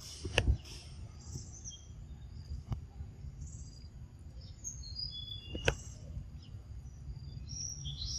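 Wild birds chirping, short high calls scattered throughout, over a steady low rumble. A few sharp clicks cut through, the loudest about half a second in and again near six seconds.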